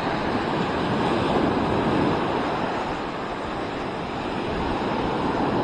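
Gulf surf breaking and washing up the beach: a steady rushing that swells, eases off near the middle and builds again, with some wind rumbling on the microphone.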